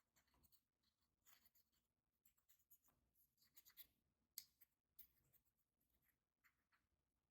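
Faint sticky crackling and clicking of slime being mixed, in irregular bursts, with one sharper click about four and a half seconds in.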